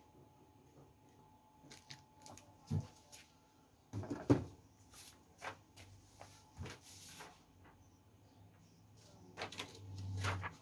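Thick paper cards being handled and set down on a duplicator's plastic top: scattered knocks and paper rustles, the loudest thump about four seconds in, and a short low hum near the end.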